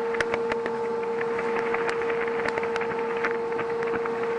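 SDT 270 ultrasound detector's listening output as its probe is held to running machinery behind a guard: a steady hum with a fainter higher tone and irregular crackling clicks.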